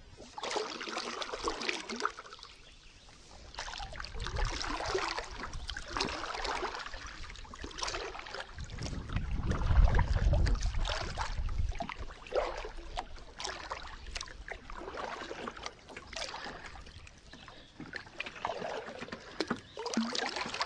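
Kayak paddle strokes: the blades of a double-bladed paddle dip and splash into the water again and again, about one stroke every second or two. A low rumble swells up about halfway through.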